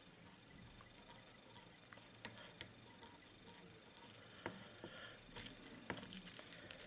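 Near silence with a few faint, scattered clicks and ticks from fly-tying tools and materials being handled while a raffia strip is tied onto a hook held in pliers.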